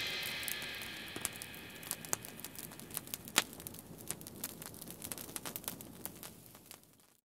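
Irregular crackling and snapping of a wood fire, with the fading ring of the band's last chord at the start; the crackling cuts off about a second before the end.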